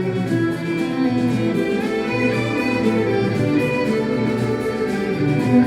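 Instrumental song introduction: violin and bowed strings playing sustained, overlapping notes.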